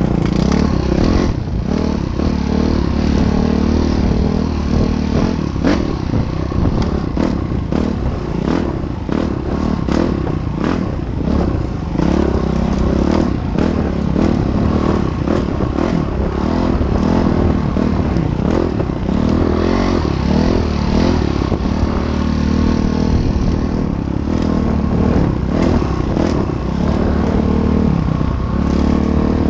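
Train crossing a railway bridge: a steady low engine rumble with wheels clattering and scraping on the rails, many sharp clicks throughout.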